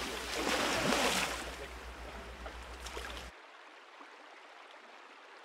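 River water splashing and rushing. It is loudest about a second in, fades, and cuts off abruptly a little over three seconds in.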